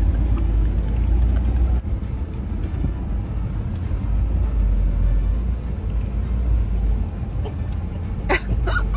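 Low, steady rumble of an off-road truck driving over rough ground, with two or three brief sharp sounds about eight seconds in.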